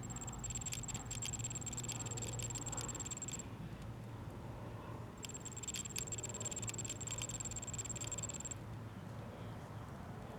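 RC helicopter's electric motor driven by a faulty speed controller (ESC): a high steady whine with rapid crackling stutter, in two bursts of about three seconds with a pause between, over a low hum. The stutter is the sign of a bad motor or speed controller, as the owner judges it.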